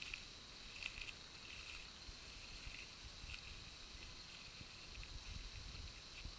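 Quiet open-air ambience: low wind rumble on the microphone and the uneven thuds of someone walking through dry grass, with a steady faint high hiss and short high chirps now and then.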